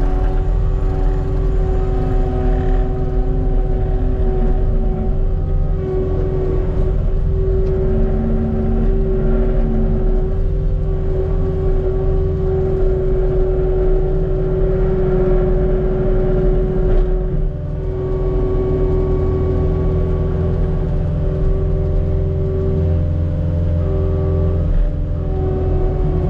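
Cat 289D3 compact track loader running under load, heard from inside the closed cab: steady diesel engine rumble with a constant hydraulic whine. It eases off briefly about two-thirds of the way through, then picks back up.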